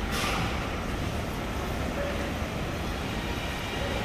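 Steady low rumble of a large airport terminal hall, with a short hiss right at the start.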